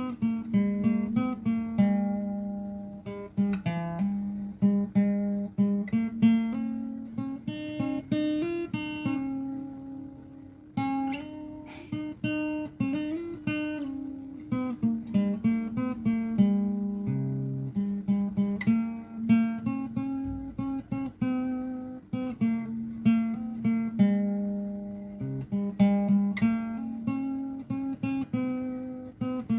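Background music on acoustic guitar, plucked notes following one another in a continuous melody.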